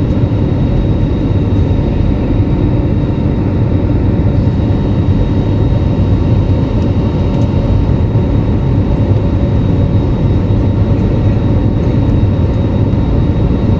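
Steady jet engine and airflow noise heard inside the cabin of an Airbus A321neo climbing out after takeoff: an even low rumble with a faint steady whine above it.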